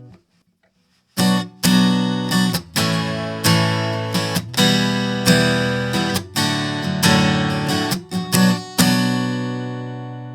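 Acoustic guitar strummed in chords: after about a second of silence, a run of sharp strums, with the last chord left ringing and slowly fading.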